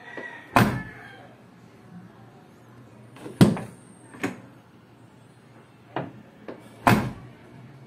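A car door is shut three times, each a solid slam, with lighter clicks of the handle and latch as it is opened in between. The DIY fix meant to make it sound like new has left the closing sound the same.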